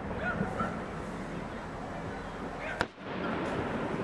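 Fireworks show: one sharp firework bang about three seconds in, over the steady chatter of a large crowd of spectators.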